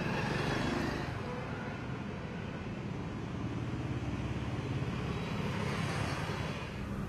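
City road traffic: motorcycles and auto-rickshaws passing with a steady engine hum.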